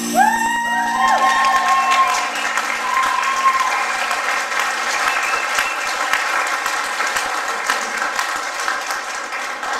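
Congregation applauding with dense, steady clapping, and a few voices calling out over it in the first few seconds.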